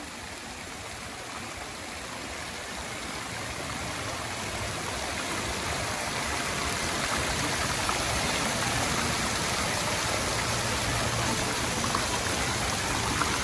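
Flowing water running steadily, growing gradually louder.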